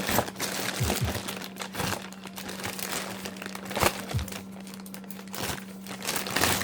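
Packaging crinkling and rustling as a parcel is unpacked by hand, with scattered irregular clicks and knocks, over a faint steady hum.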